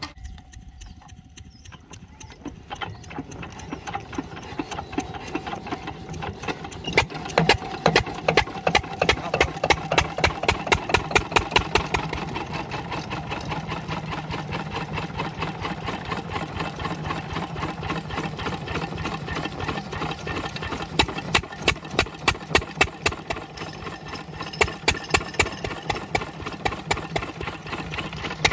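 8 hp diesel water-pump engine firing up after a hard start: after a quiet couple of seconds its strokes come in evenly, quicken and grow louder, then it settles into a steady running beat. Louder strokes stand out for a few seconds about a quarter of the way in and again near the end.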